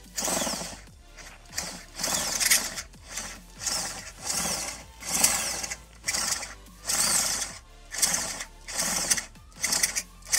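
Corded electric drill run in short pulses, about one a second, drilling out the stripped brake-caliper mount thread on a suspension fork lower to take a threaded insert. Faint background music underneath.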